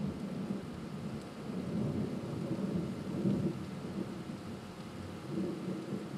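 Thunder rumbling low and continuously in a thunderstorm, swelling and fading several times, with rain in the background.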